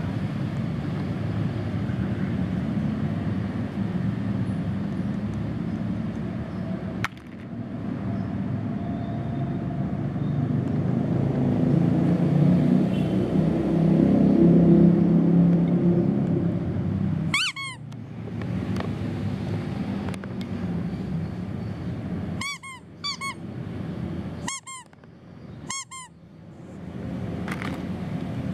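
Low steady rumble of traffic that swells to its loudest around the middle and then drops away, with several short, sharp high squeaks in the second half.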